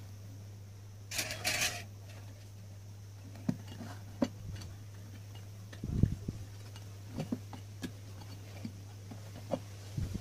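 Scattered light knocks and taps, with a short scrape near the start, as hands handle and close a metal amplifier case with a finned heatsink. The loudest is a dull thud about six seconds in, over a steady low hum.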